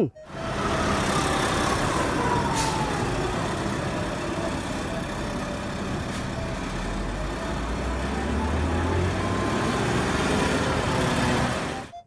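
Heavy articulated concrete mixer truck's diesel engine running steadily, its low engine note growing louder and rising slightly for a few seconds past the middle.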